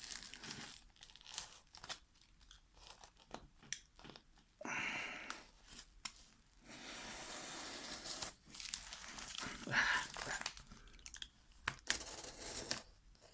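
A parcel's packaging being torn open, with tearing, crinkling and scattered crackling clicks. Longer stretches of ripping come about five seconds in and again from about seven to ten seconds.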